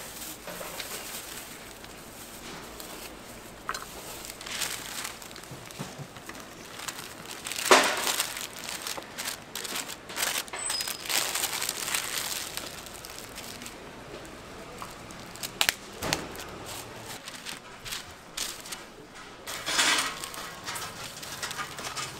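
Plastic bag and wrapping paper crinkling and rustling in irregular handfuls as a takeaway packet is wrapped and folded by hand. A few sharper, louder crackles stand out, the loudest about a third of the way in.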